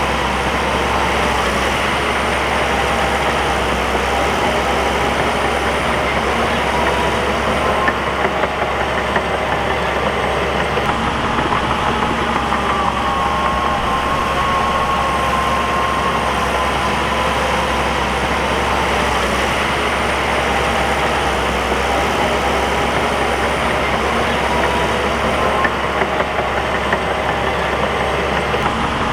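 Bulldozer's diesel engine running steadily, its pitch drifting slightly up and down.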